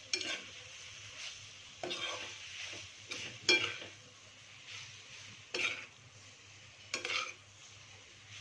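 A spatula stirring and scraping fusilli pasta around a metal pan on the stove, with five louder scrapes, the loudest about three and a half seconds in.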